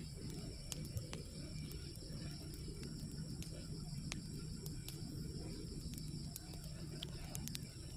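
Steady chorus of insects such as crickets, with scattered light ticks and drips and a low steady background rumble.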